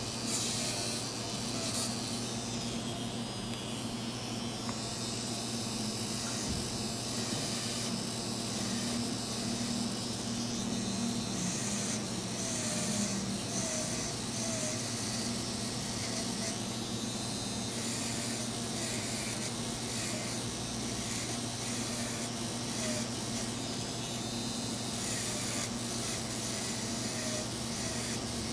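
Electric nail drill running steadily, its fine bit grinding gel and glued-on decorations off a fingernail: a constant motor hum under a grinding hiss.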